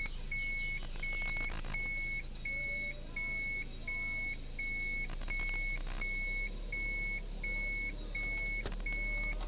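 A car's electronic warning beeper sounding a steady, evenly repeated high beep, about three beeps every two seconds, over a low hum inside the cabin.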